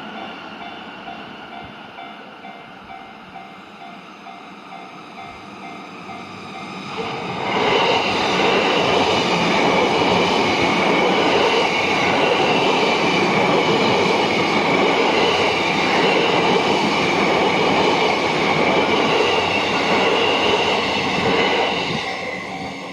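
Yamanote Line electric commuter train passing over a level crossing: a loud, steady rumble and rush of wheels on rail that comes in suddenly about seven seconds in and dies away near the end. A repeating warning tone, typical of the crossing alarm, is heard before and after the train.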